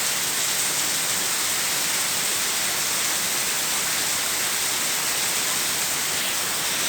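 Heavy rain falling steadily in a rainstorm, a dense, even hiss of downpour.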